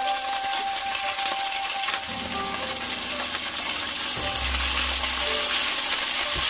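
Food sizzling in hot oil in a pan, a steady dense frying hiss. A low thump-like rumble comes about four seconds in, with faint background music over it.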